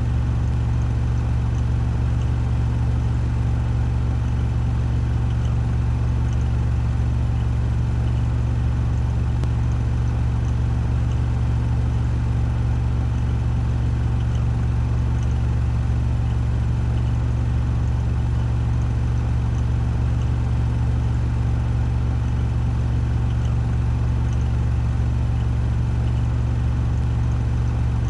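Washing machine in a 1400 rpm spin cycle, drum spinning steadily with a constant low hum.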